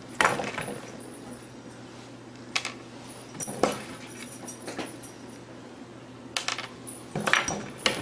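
A cat's paws and a small cracker tapping and clicking on a wooden tabletop as the cat bats the cracker about: about half a dozen sharp, light knocks at uneven intervals, over a faint steady low hum.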